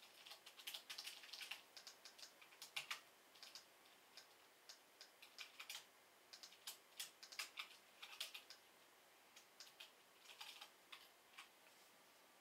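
Typing on a computer keyboard: quiet, irregular runs of light key clicks that stop about a second before the end.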